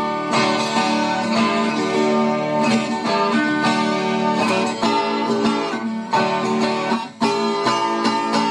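Instrumental viola caipira music: the Brazilian ten-string folk guitar plucked in a quick, rhythmic moda de viola pattern, with a brief break about seven seconds in.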